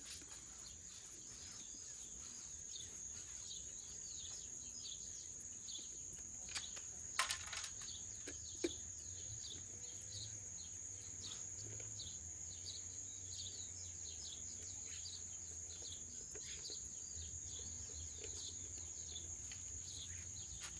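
Quiet outdoor ambience: a steady high-pitched insect drone with many short chirps scattered through it. Two sharp knocks come about seven and eight and a half seconds in.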